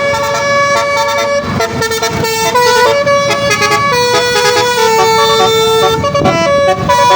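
Bus telolet horn, a set of tuned air horns, playing a tune of held notes that step up and down in pitch, changing every half second or so.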